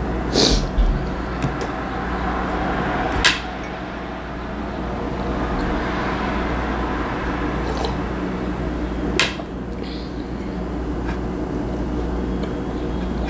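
A few short, sharp clinks and knocks of tableware (a glass coffee mug, a plate and cutlery) on a table during a meal, over a steady background hum.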